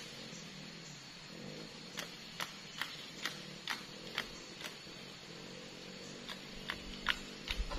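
Machete chopping at a plant stem: sharp knocks about two a second, in runs with a short pause, over a low steady hum.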